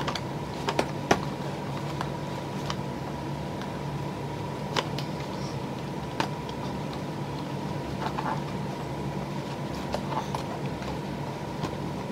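Steady mechanical hum with a thin high tone in it. Scattered light taps and clicks come from a cardboard toy box being handled and opened.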